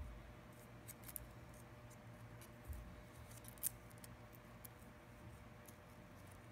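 Faint, scattered small clicks and ticks of fingers handling an iPhone 6 screen assembly and its proximity sensor flex cable, the sharpest a little past three and a half seconds in, over a low steady hum.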